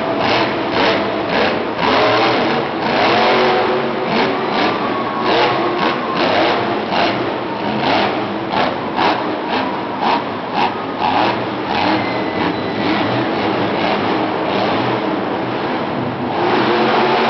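Monster truck engine revving hard, its pitch rising and falling, with a run of short, quick throttle blips in the middle.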